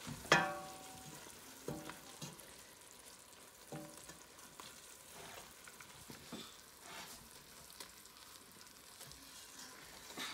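Wooden spoon stirring onions, butter and flour in a stainless steel pot, with a faint sizzle from the pan. The spoon knocks against the pot now and then; the loudest knock, just after the start, rings briefly.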